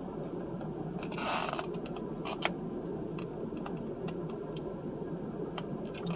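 Close-miked eating sounds: chewing, with a short rustle about a second in and a few small clicks.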